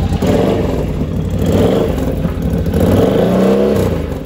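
ATV engine running just after starting, revved up and down with the throttle a few times; it runs well.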